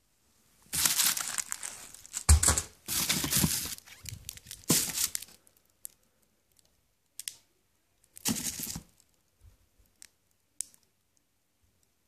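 Plastic wrapping and cardboard box flaps crinkling and rustling as things are pulled out of the packed box. It comes in several loud bursts in the first half, with one more short burst about eight seconds in and a few light clicks.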